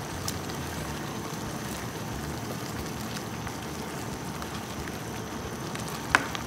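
Mung bean stew with squash and shrimp simmering in a wok, a steady bubbling hiss, with two sharp knocks of the ladle against the pan near the end.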